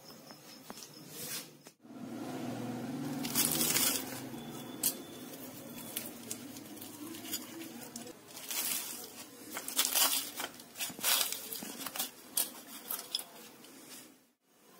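Crisp deep-fried momos being pulled apart by hand, the fried dough crackling and crunching in a series of short bursts.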